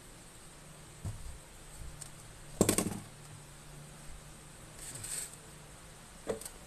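Handling noises of a MacBook Pro laptop being turned over and set down on a rubber work mat. A light knock comes about a second in, then a louder rattling clatter near the middle, a brief rub, and a sharp click near the end.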